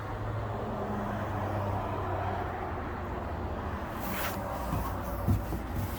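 Steady low rumble of a motor vehicle's engine, with a brief hiss about four seconds in.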